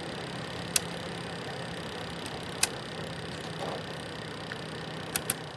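BLACK+DECKER portable space heater running with a steady fan whir and low hum, the very loud noise it makes when switched on. A few sharp clicks cut through it, two of them close together near the end.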